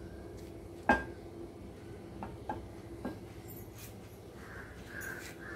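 Quiet kitchen background while oil heats in a kadai on a gas stove, with no sizzle yet. There is a steady low hum, one sharp click about a second in, and a few lighter clicks over the next two seconds.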